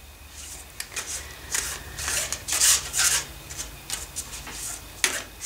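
Oracle cards being shuffled by hand: a run of irregular, short, papery rasps, densest about halfway through and thinning out near the end.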